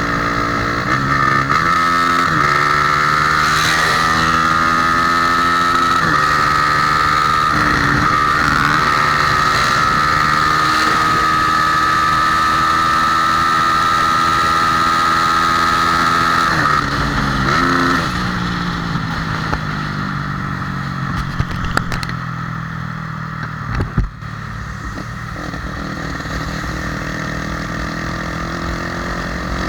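Honda Tornado motorcycle's single-cylinder engine, bored out to 293 cc, running under throttle. Its pitch steps up and down several times in the first few seconds and holds steady for about ten seconds. From about eighteen seconds in, the engine note drops and slowly winds down, quieter.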